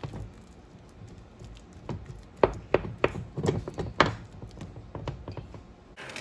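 Wooden spoon knocking and scraping against an aluminium saucepan while stirring and mashing thick mashed potatoes to break up the remaining chunks. The knocks are irregular, loudest and most frequent from about two to four seconds in.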